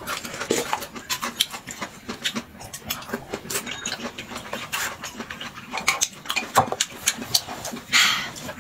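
Close-up eating sounds of two people working through plates of noodles with chopsticks: wet chewing, smacking and slurping as a steady run of short clicks. Near the end comes a longer, hissing slurp.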